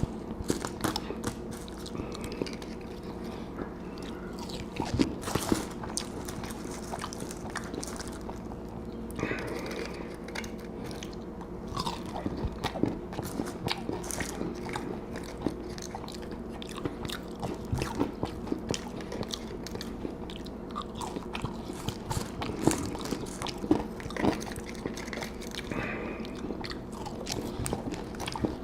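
Close-miked eating of a fast-food meal: irregular bites, crunches and chewing sounds throughout, over a steady faint hum.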